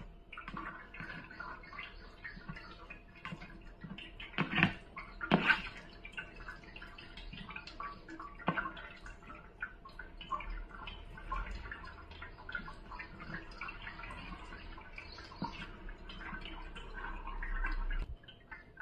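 Metal spoon stirring and mashing thick, wet wheat batter in a terracotta bowl, with a continuous squelching, sloshing sound. Two sharper knocks of the spoon against the bowl come about four and a half and five and a half seconds in, and a low rumble builds near the end and stops suddenly.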